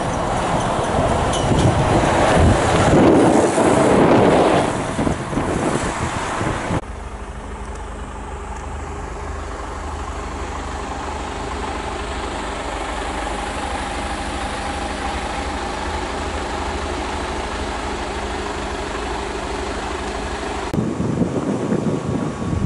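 A Mercedes-Benz Actros tractor unit drives past, its diesel engine swelling to a peak about three to four seconds in. The sound cuts off at about seven seconds into a steady, even drone. A rougher, louder noise begins near the end.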